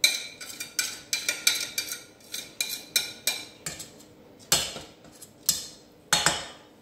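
A spoon clinking and knocking against the sides of a stainless steel saucepan while stirring chunks of Maroilles cheese into a thick batter. The knocks come about three a second, with a few heavier knocks in the second half.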